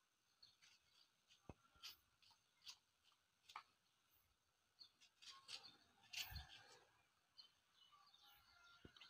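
Near silence, with faint scattered clicks from a kitchen knife cutting a tomato into chunks by hand.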